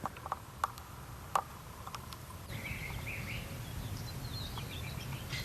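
Birds chirping in short calls in the background from about halfway through, over steady outdoor rumble, with a few scattered light clicks in the first two seconds.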